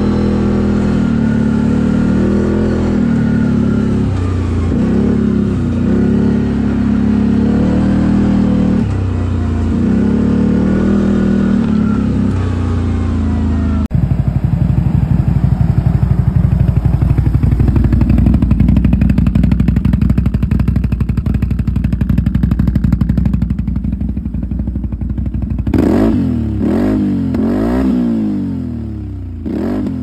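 CFMoto CForce 1000 ATV's V-twin engine through an aftermarket Akrapovic exhaust, revving up and down under throttle while riding. About 14 s in the sound changes suddenly to a steady hard pull, and near the end there are several quick revs rising and falling.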